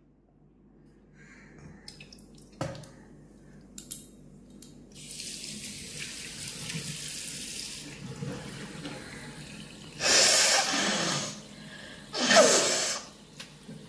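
Tap water running into a sink from about five seconds in. Then come two loud, forceful bursts of a person expelling mucus through the nose and throat, about two seconds apart.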